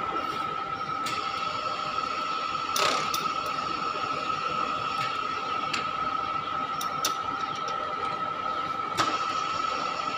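Weida universal milling machine running with its table power feed engaged: a steady high gear whine from the gear drive, with a few short clicks or knocks about three seconds in and again near the end.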